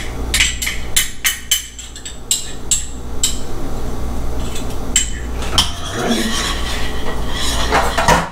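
A utensil beating egg and mustard in a glass bowl, clinking sharply against the glass about three to four times a second; after about three seconds the clinking stops and gives way to softer, irregular stirring and handling noises with a few light knocks.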